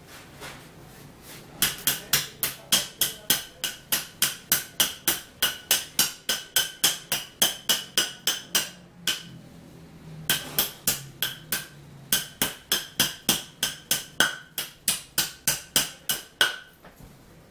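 Claw hammer striking the top edges of a stack of upright drawer panels in quick, even blows, about three a second, driving in glued wooden dowels. Each blow has a short ringing knock. The blows pause for about a second roughly halfway through, then resume and stop shortly before the end.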